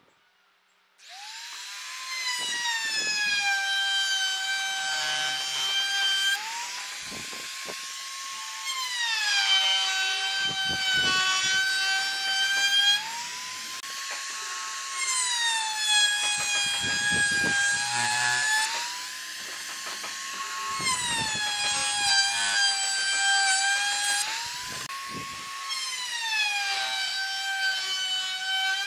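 Compact trim router running with a high whine as it routes along the edge of a wooden strip. The pitch sags each time the bit cuts into the wood and climbs back when it comes off, in about five passes some six seconds apart, with cutting chatter under the whine.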